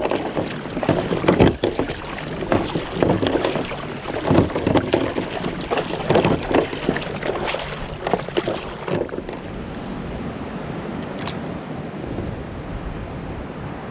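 Kayak paddle strokes splashing in the sea, one every half second to a second. The strokes stop about nine seconds in, leaving a steady wind-and-water hiss.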